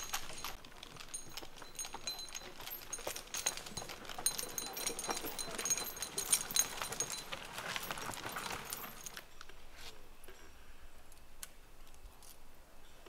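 Metal skidding chain on a horse-dragged log rattling and clinking with many quick metallic jingles as it is handled, stopping about nine seconds in, with only a few light knocks after.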